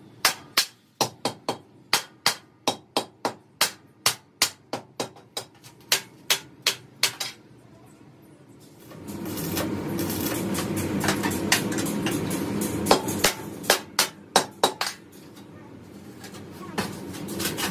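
A hammer striking steel on a compressor tank's dished end cap and cylindrical shell, sharp ringing blows about three a second for the first seven seconds. After a short pause a steady low drone comes in, with a few more knocks over it.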